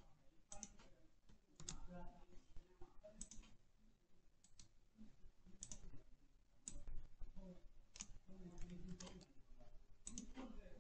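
Faint, irregular computer mouse and keyboard clicks as text is selected and copied on a PC.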